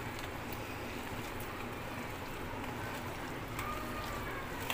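Faint wet squishing and light ticks of a hand kneading raw mutton chops into thick yogurt and spice paste in a steel bowl, over a steady background hiss.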